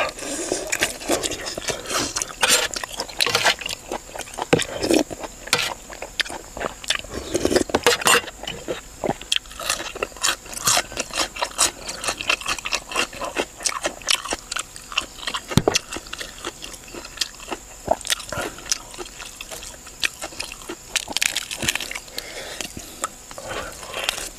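Close-miked eating: a person biting, tearing and chewing tough chicken meat off the bone, with wet smacks and irregular crackling clicks.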